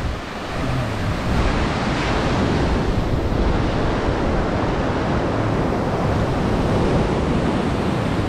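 Small surf breaking and washing up the sand at the water's edge, a steady rushing wash, with wind rumbling on the microphone.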